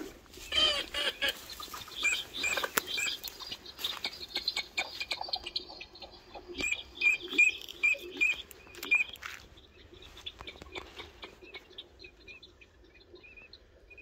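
Ducks calling. Scattered calls are capped by a run of short, high chirping notes, about three a second, around the middle.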